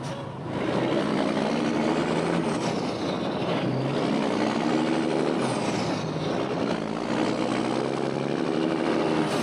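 Turbocharged diesel semi truck accelerating under load: the engine pitch climbs, drops back at each gear shift and climbs again, several times over.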